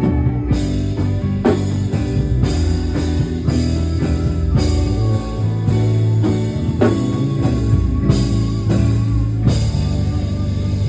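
Instrumental band music with a drum kit, guitar and steady low bass notes, without singing.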